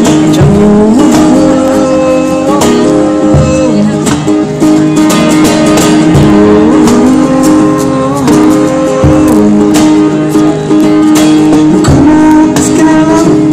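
Two acoustic guitars strummed together in a steady rhythm, with a young man singing over them.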